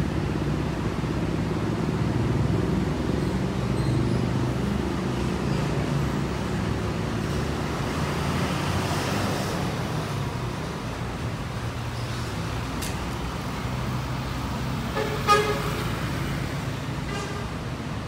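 Intercity bus engine running as the bus pulls away and drives off, with traffic noise. About fifteen seconds in, a vehicle horn gives one short toot, the loudest sound, and a fainter toot follows near the end.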